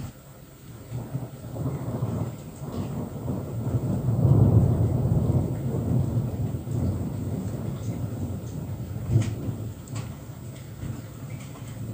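Rolling thunder from a nearby thunderstorm: a low rumble that builds about a second in, peaks around four to five seconds in, then slowly dies away, with light rain ticking.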